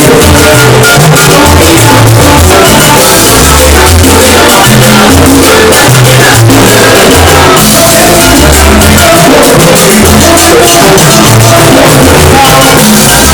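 Loud Latin dance music with a pulsing bass line, recorded close to full level.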